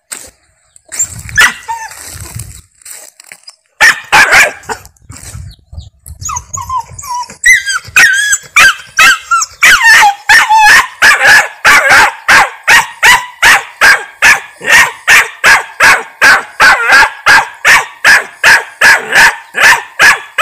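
A dog barking over and over at a steady pace of about two to three barks a second, after a few seconds of scattered, uneven barks and yelps.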